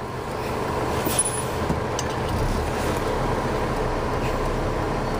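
Steady running of motor vehicle engines with road traffic noise, a low rumble that grows a little about a second in.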